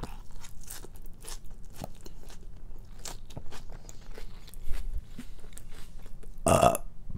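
Close-miked chewing of a mouthful of salad of greens, cucumber and noodles: a run of small wet crunches and mouth sounds. Near the end comes one short, louder burp.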